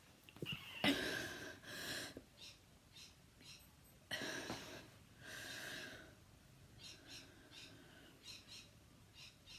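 A person's harsh, dry coughing, the repetitive cough of habit cough (a somatic cough tic): a sudden loud cough about a second in with a second one right after, another pair about four seconds in, then several short, fainter coughs or breaths near the end.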